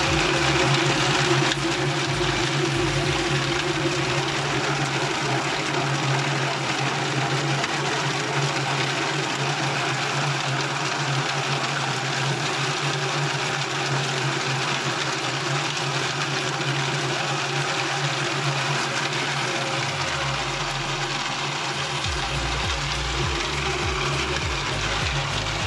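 Kadıoğlu CKS 80D variable-speed walnut hulling machine running near its top speed, its perforated stainless drum tumbling a load of green walnuts under a water spray to strip the husks. A steady churning wash of noise with a constant low hum.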